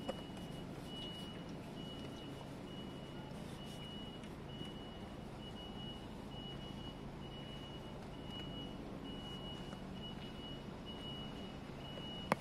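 A vehicle's reversing alarm beeping at one steady pitch, about one beep a second, faint, over a low steady engine hum.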